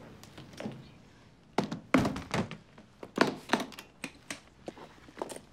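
A large binder being handled and set down on a table: a run of thunks and knocks, the loudest about two seconds in.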